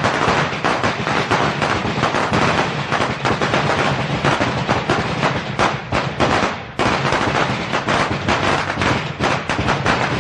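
A string of Chinese firecrackers going off in a rapid, continuous crackle of many loud bangs, with a momentary lull about two-thirds of the way in before the crackling picks up again.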